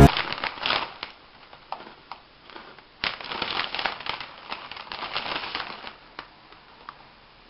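Crinkling and crackling of a plastic snack wrapper being handled, in bursts of quick crackles in the first second and again from about three to six seconds in.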